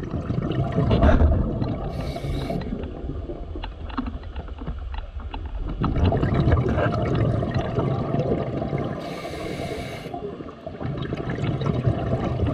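Scuba regulator breathing underwater: a short hissing inhale about two seconds in and another about nine seconds in, with the low rumbling gurgle of exhaled bubbles in between.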